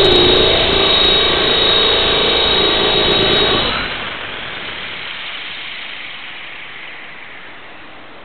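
EXI 450 electric RC helicopter running, with a steady high whine from its motor and rotors, heard close up from a camera on board. About four seconds in the motor note cuts off and the sound falls away, the rotors spinning down with a fading whoosh.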